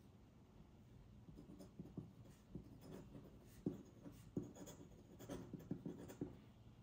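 Metal nib of a feather quill dip pen scratching on paper as words are written by hand, in faint short strokes that begin about a second and a half in.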